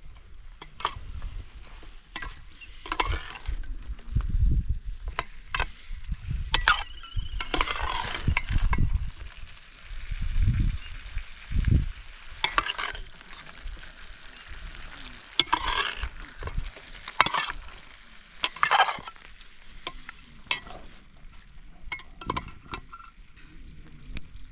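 Irregular footsteps with rustling, and low rumbling thumps now and then.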